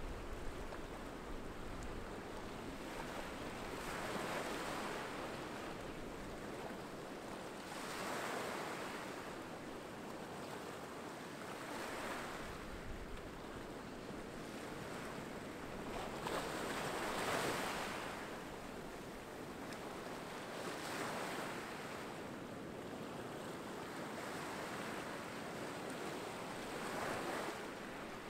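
Small waves washing up on a rocky beach, the surf swelling up and falling back about every four to five seconds.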